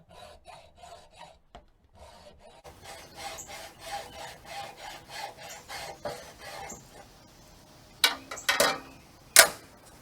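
Hacksaw cutting through a raised-bed stacking stake, back-and-forth strokes at about three a second, followed by a few sharp clacks near the end.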